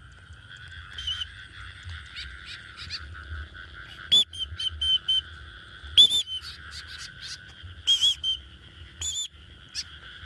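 Short, sharp, high chirping calls, the loudest about four, six, eight and nine seconds in, over a steady high-pitched drone from outdoor wildlife and a low rumble.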